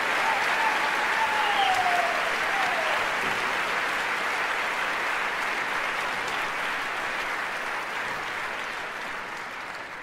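Theatre audience applauding, with a few shouts rising over the clapping in the first few seconds. The applause slowly dies away towards the end.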